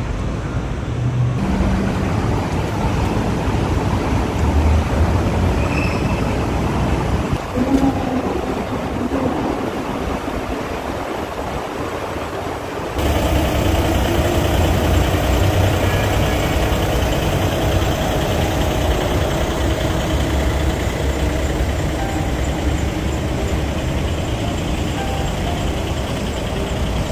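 Steady city traffic noise, a continuous rush of passing vehicles that turns louder about halfway through, with an engine hum under it.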